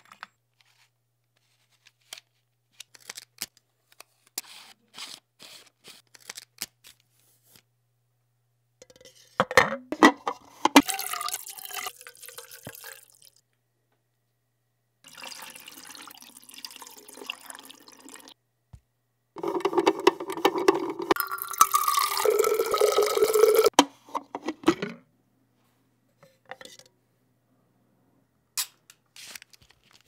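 Small clicks and ticks of film-handling gear, then liquid being poured and sloshed in a film developing tank in three noisy stretches, the last and loudest lasting about five seconds. A few more clicks come near the end.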